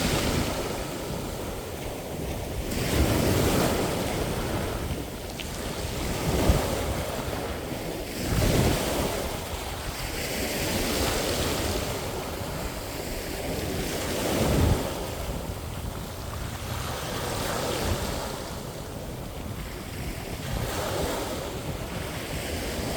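Sea waves breaking and washing up the shore: a continuous rush of surf that swells and falls back every few seconds, with a few stronger surges.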